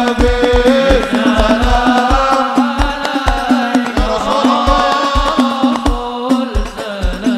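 Live sholawat music from a hadroh-style ensemble: a steady low drum beat, two to three strokes a second, with hand-drum strokes under a sustained melody.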